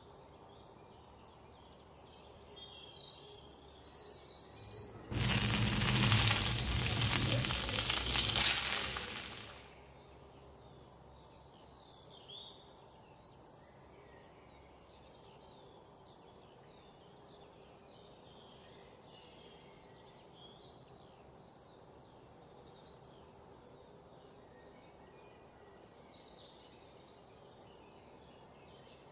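Strips of wild mushroom frying in hot oil in a clay pan: a loud sizzle starts about five seconds in and dies down after about four seconds, leaving faint frying and quiet background.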